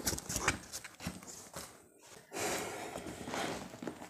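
Cardboard box being handled: flaps and a cardboard insert rustling and knocking, then the box scraping as it is turned and shifted on the table.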